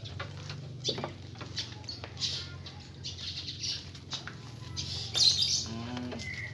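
Goats and sheep feeding at a wooden trough: rustling of chopped greens and chewing, with scattered light knocks, the loudest rustle about five seconds in. A bird chirps right at the end.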